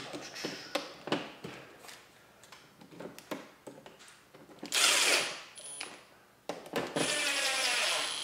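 Light clicks of the gel blaster gearbox being handled, then a cordless power screwdriver running as it drives screws into the nylon gearbox shell: one short run about five seconds in, and a longer, steady run about seven seconds in.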